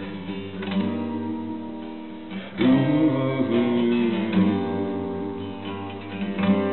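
Acoustic guitar strumming chords in an instrumental passage, with a louder strum about two and a half seconds in.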